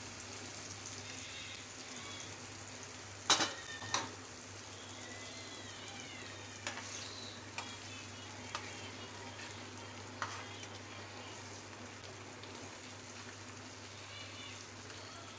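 Beaten eggs frying over onion-tomato masala in a non-stick pan, with a steady sizzle while a spatula spreads and turns them. A few sharp knocks of utensils on the pan, the loudest two or three about three to four seconds in, and lighter taps later.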